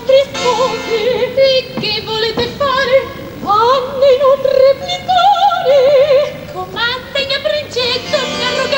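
Female opera voices singing with wide vibrato, in short phrases that break off and restart.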